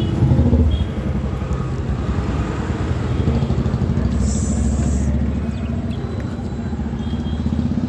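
A motor vehicle's engine running with a steady low rumble. A brief high hiss comes about four seconds in.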